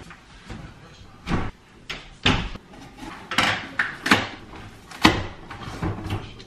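Kitchen handling noise: a string of short clunks and knocks as a metal baking sheet of cookies is set on the stovetop, then rustling and clatter as a cardboard case of bottled water is opened and a plastic bottle pulled out. The sharpest knock comes about five seconds in.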